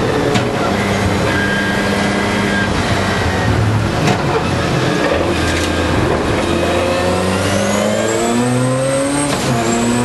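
Mazda RX-7 time-attack race car's engine heard from inside the cockpit under hard driving: revs held steady, easing through a corner in the middle, then climbing in pitch under acceleration, with a quick upshift near the end before rising again.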